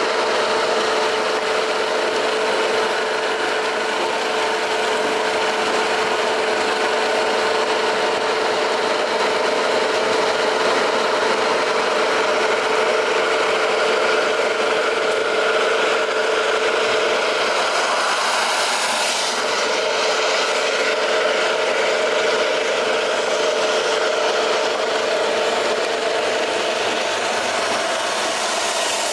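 Heavy-duty wet grinder running, its 2 HP motor turning emery stones that grind soaked rice into batter: a steady, loud grinding with a continuous hum that drops away near the end.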